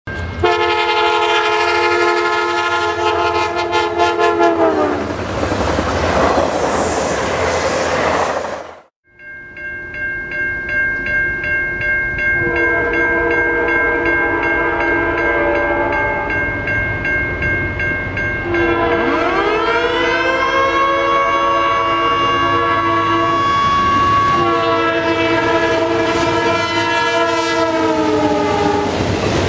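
Norfolk Southern freight locomotive horns: a multi-note air horn sounds and drops in pitch as the train passes, followed by the rumble of the train. After a break, a grade-crossing bell rings steadily while a second locomotive blows a series of long horn blasts that drop in pitch near the end as it passes close by.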